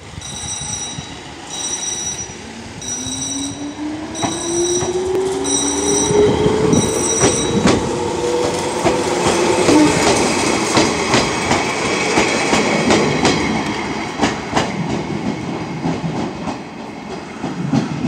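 Hokuriku Railroad 7700-series electric train (ex-Keio 3000 series) pulling away, its motor whine rising in pitch as it accelerates, then its wheels clattering over rail joints and points as it passes close. A level-crossing bell rings about once a second for the first seven seconds or so, then stops.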